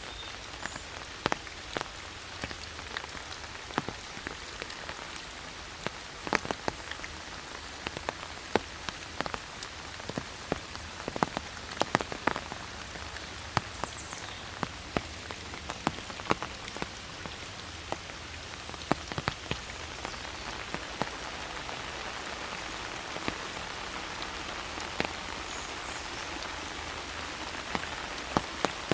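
Steady rain falling through forest, with a constant hiss and many irregular sharp drips of single drops landing close by.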